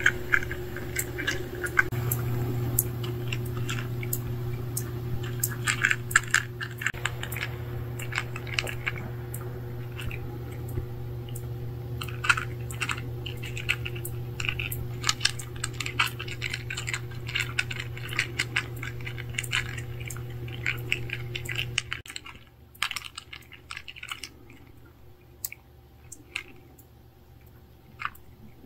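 Two cats crunching dry kibble from a tray: rapid small clicks and crunches of chewing. Underneath is a steady low hum that cuts off about twenty-two seconds in, leaving the chewing over a quieter background.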